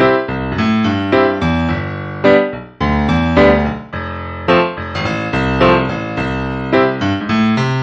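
Background music: a piano playing a melody over chords, each note struck and then fading.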